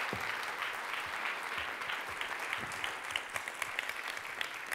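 Audience applauding, many hands clapping in a large hall; the applause thins slightly near the end.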